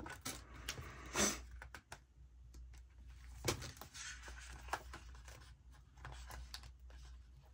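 Paper rustling as hands handle sticker sheets and planner pages, with a short louder rustle about a second in and a light tap around three and a half seconds in.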